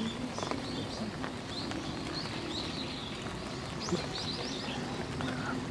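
Birds chirping repeatedly with short, high calls over a steady hiss of light rain. A single sharp tap sounds about four seconds in.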